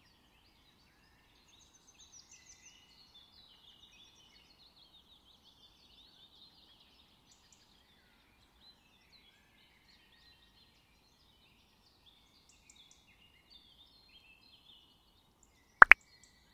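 Faint chorus of small birds chirping, many short overlapping calls. Near the end, a sharp double click from the like-button animation's mouse click.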